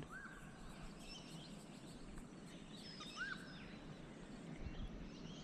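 Birds calling: two short arched whistles, one near the start and one about three seconds in, with scattered higher chirps, over faint steady background noise. A soft low thump sounds near the end.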